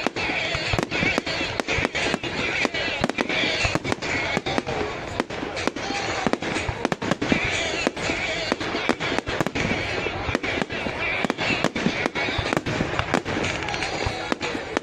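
A fireworks display going off in quick succession: sharp aerial shell bangs, several a second, over a continuous crackle.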